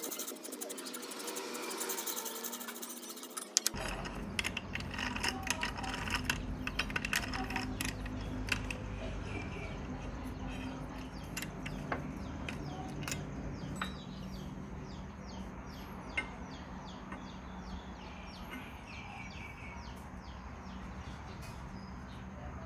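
Light metal clicks and taps as parts and tools are handled on a metal lathe, over a steady low hum. A fast light rattle runs for the first few seconds, and the clicks are busiest for several seconds after it, then grow sparse.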